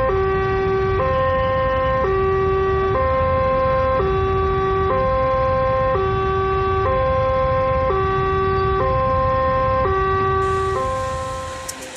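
Two-tone siren alternating between a high and a low note, each held about a second, over a low rumble. It fades out near the end.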